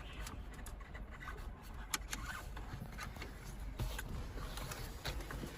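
Wiring harness connectors and plastic dash parts being handled: light rubbing and scattered small clicks, one sharper click about two seconds in, over a low steady hum.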